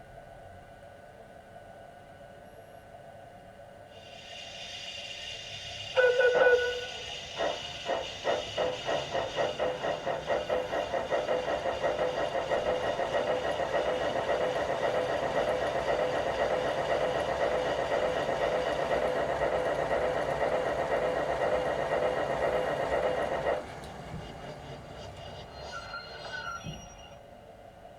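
Steam-locomotive sound from the Zimo sound decoder in an LGB G-scale Porter model, built from recordings of a real H. K. Porter locomotive: after a soft steam hiss, a short whistle toot, then wheel-synchronised exhaust chuffs that start slowly and quicken as the locomotive gets under way. The chuffing stops suddenly about two-thirds of the way through, leaving a quieter hiss.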